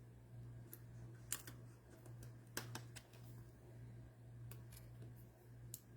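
Faint, scattered clicks and ticks from trading cards and pack wrappers being handled, over a steady low hum.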